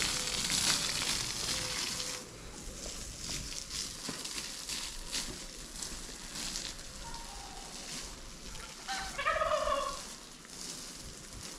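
Poultry calling: one wavering call about nine seconds in, with a shorter, fainter call a couple of seconds before it, over scattered light clicks and knocks.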